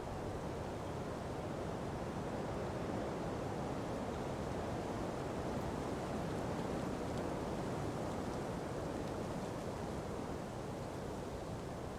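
Ocean breeze blowing through palm trees: a steady rushing noise that swells a little in the middle and then eases.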